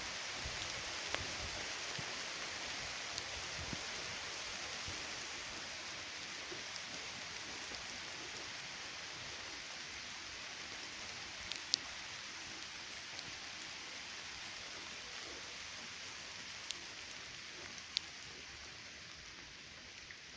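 Steady rain falling as an even hiss, slowly easing, with a few sharp taps of single drops striking, the loudest about twelve and eighteen seconds in.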